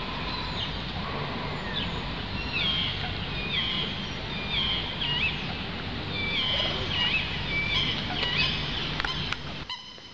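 Wild birds calling by open water: many short, repeated chirping calls over a steady low background rumble. Near the end the rumble cuts off and a few sharper, evenly repeated calls are heard.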